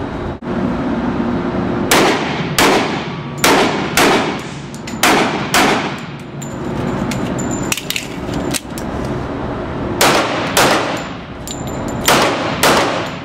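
Handgun shots on an indoor range, about ten in all, mostly fired in quick pairs about half a second apart. Each shot is a sharp crack followed by a short echo off the range walls.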